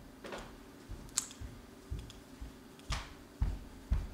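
Irregular clicks and light knocks from a computer keyboard and mouse, about nine in a few seconds, over a faint steady hum.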